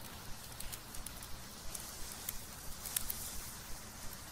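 Burning charcoal crackling, with irregular short, sharp pops over a low steady hiss.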